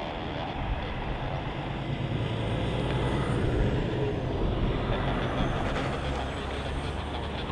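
Jet airliner engines running, a steady rumble with a faint high whine that rises and falls around the middle.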